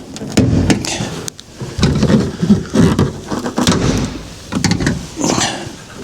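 Plastic cab door trim panel of a Fiat Ducato being levered off with a trim clip removal tool: the plastic creaks, and the retaining clips let go with a string of sharp clicks and knocks.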